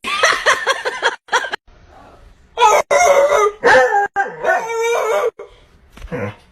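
A rooster crowing: a choppy run of calls at the start, then one long wavering crow of nearly three seconds from about two and a half seconds in.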